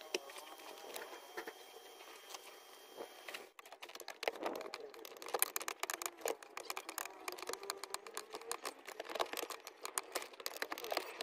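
Small, irregular clicks and rattles of plastic dashboard and air-conditioning housing parts handled and fitted back into place by hand. The clicking starts about three and a half seconds in and grows dense.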